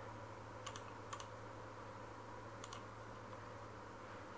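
A few faint, short clicks of someone working a computer, single and in quick pairs, over a low steady hum.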